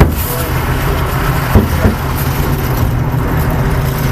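A vehicle engine running with a steady low rumble, with a few short thumps near the start and twice about a second and a half in.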